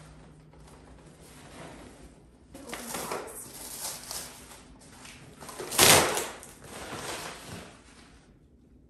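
Large cardboard mirror box being laid down and opened: cardboard scraping and rustling as the flaps and panels are handled. A sharp, loud cardboard sound comes about six seconds in.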